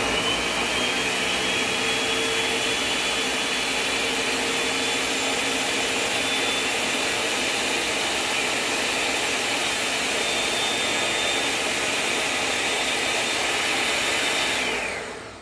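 Countertop pitcher blender running steadily, blending a smoothie of yogurt, 1% milk and sweetener. A steady motor whine with a high tone over it, which drops in pitch and fades as the blender is switched off near the end.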